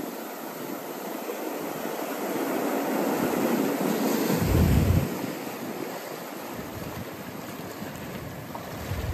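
Ocean surf washing in over rocks and cobbles, building to a rush about halfway through and then easing off as the water drains back. A low rumble of wind on the microphone comes with the peak.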